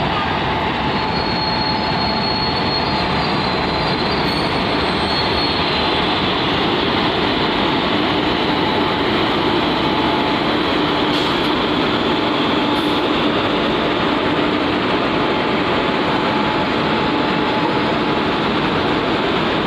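WAG-7 electric locomotive hauling a container freight train past at close range: a loud, steady running noise of the train on the rails, with a faint steady hum underneath.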